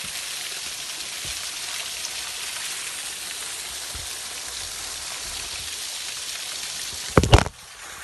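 Steady rushing hiss of falling water, broken about seven seconds in by a quick cluster of loud knocks.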